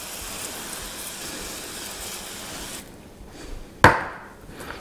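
Avocado oil cooking spray hissing in one continuous spray for nearly three seconds, then a single sharp knock.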